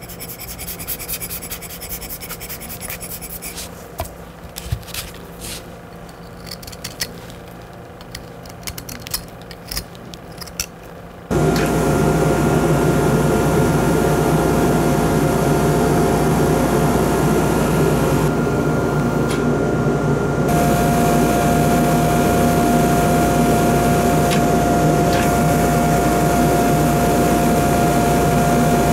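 Light scratching and clicking of hand work on a rusted iron artifact. About eleven seconds in, a handheld pen-shaped power tool on a hose starts up with a loud steady hiss and a high whine as it cuts rust and encrustation off the iron, and partway through the whine grows stronger.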